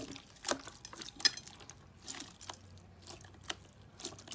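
Hands squeezing and pressing clear purple slime, giving wet, sticky clicks and pops at irregular intervals, the sharpest a little over a second in.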